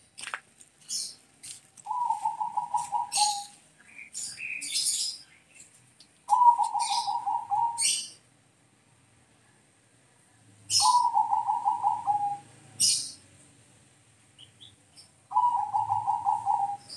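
Zebra dove (Bangkok-bred perkutut) cooing: four phrases of rapid, evenly pulsed notes, each about a second and a half long and a few seconds apart. Short sharp high chirps of small birds come in between the phrases.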